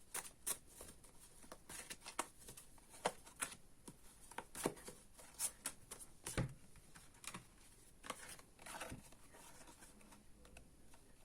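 Fortune-telling cards being shuffled and laid out by hand: a run of irregular sharp snaps and taps, thinning out near the end.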